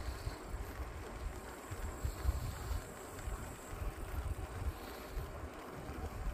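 Wind buffeting the microphone of a camera on a moving bicycle: an uneven low rumble with a faint hiss above it.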